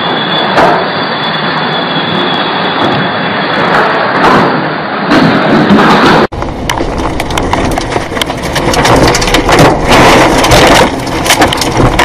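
Tornado wind roar, a loud continuous rush of noise heard from indoors beside the windows. After a sudden cut about six seconds in, the roar is heard from inside a vehicle in the tornado, fuller and louder, with many sharp knocks and cracks as debris strikes.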